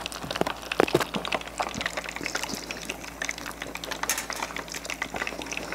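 Hot oil bubbling and crackling in a small tabletop deep fryer as fugu karaage fries, a steady sizzle with many small pops and a few sharper clicks.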